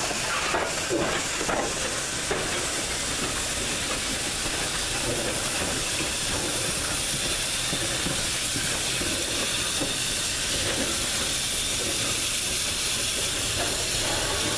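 Steady hiss of escaping steam from a 2-6-6-2 articulated steam locomotive, engine 1309, as it moves slowly with its passenger train, with a few clicks of wheels over the rail joints in the first couple of seconds.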